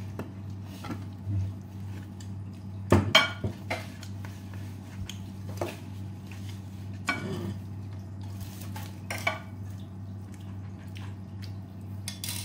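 Metal spoon and dishes clinking and knocking on a glass tabletop during a meal: a few scattered sharp knocks, the loudest two close together about three seconds in. A low steady hum runs underneath.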